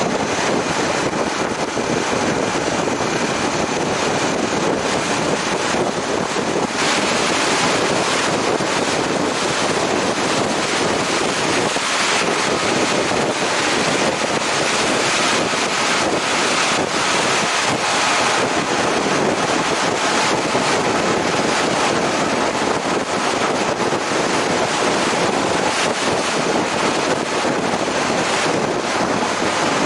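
Steady, loud wind rush buffeting the microphone, typical of a motorcycle ride at speed.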